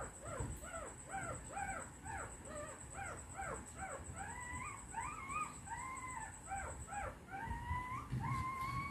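Newborn puppies whining and squealing: many short, high, falling cries overlapping, several a second, turning into longer drawn-out whines in the last couple of seconds.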